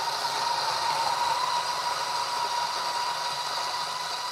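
Turin DF83v 83 mm flat-burr electric grinder's motor and burrs grinding espresso beans into a portafilter: a steady whirring hiss with a high, even hum, very quiet for a grinder.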